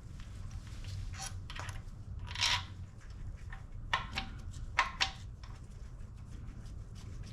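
A few light clicks and one short scrape from hand tools and parts being handled while fitting timing parts to an engine, over a low steady hum.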